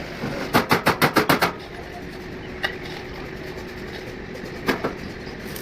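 Hammer striking metal in a bus body workshop: a quick run of about eight sharp knocks in a second, then a single knock and two more near the end, over a faint steady hum.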